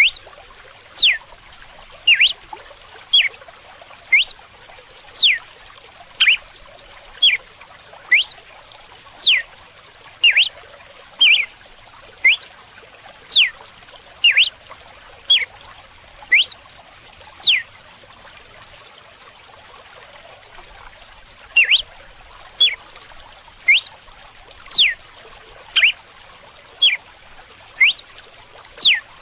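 Red-cowled cardinal (galo-de-campina) singing its whip-like 'açoite' song: short, sharp whistled notes about one a second, some sweeping steeply down and some short and rising, with a pause of a few seconds past the middle. Under it is the steady sound of running water.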